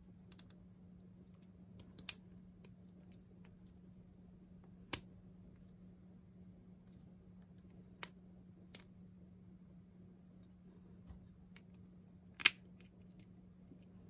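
Small 3D-printed plastic parts of a flashlight holder being handled and snapped together, with a small EDC flashlight clipped in: a few sharp, separate clicks, the loudest about twelve seconds in.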